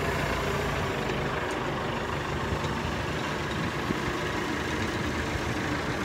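Steady low drone of an idling engine, even throughout with no distinct events.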